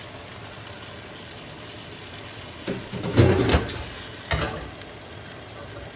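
Chicken sizzling steadily in a pan with a little water just added. There are a few clattering knocks about three seconds in and one more a second later.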